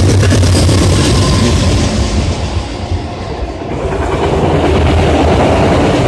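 Norfolk Southern freight train of autorack cars passing close by: a loud, steady rumble of steel wheels on the rails, with clacking over the rail joints during the first couple of seconds.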